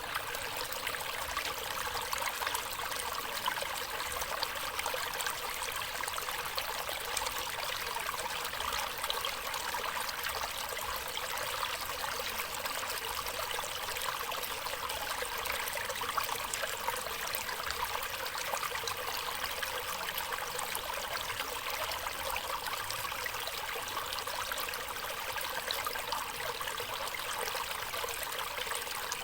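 Stream water running steadily, a continuous splashing rush with little deep rumble.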